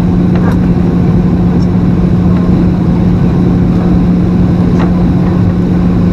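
Cabin noise of a Boeing 737-800 on final approach, heard from a window seat over the wing: its CFM56-7B engines and the rushing air make a steady loud drone with a constant low hum.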